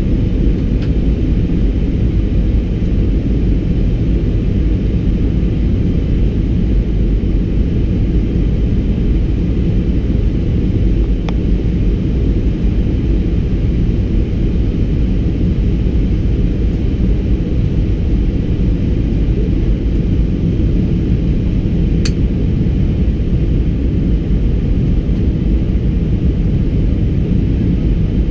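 Steady rumble of an Airbus A320-200 in flight, heard from inside the cabin: engine and airflow noise. A brief click sounds about two-thirds of the way through.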